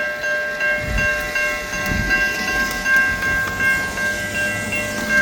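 High-pitched Siemens electronic level-crossing bell ringing in quick repeated strikes, about two to three a second. From about a second in, the low rumble of a passing commuter train on the rails joins it.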